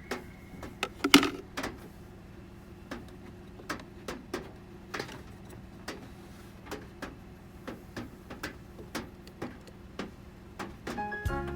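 Scattered clicks and knocks of hard plastic being handled while the cabin air filter is changed, the loudest about a second in, over a faint steady hum.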